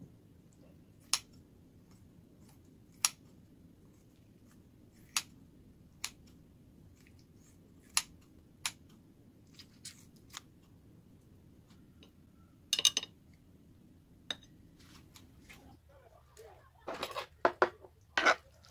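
Kitchen scissors snipping through cooked squid on a plate: single sharp snips every second or two. Near the end comes a quicker run of clicks and clatter.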